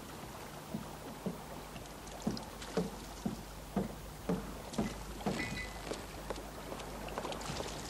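Footsteps of a woman in high-heeled shoes walking at an even pace, about two sharp steps a second, over a faint steady background hum.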